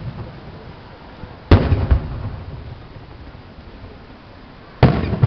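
Aerial firework shells bursting: a loud bang about a second and a half in, with a second crack half a second later, and another bang near the end. Each one dies away over a second or so.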